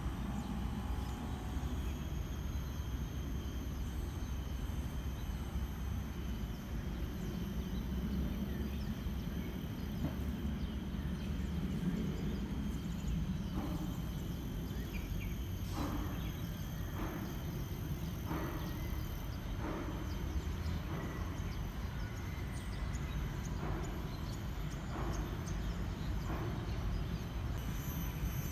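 Outdoor ambience: a steady low rumble under a faint, steady high-pitched insect drone. From about halfway on, a string of soft, irregular ticks or knocks, roughly one every second or so.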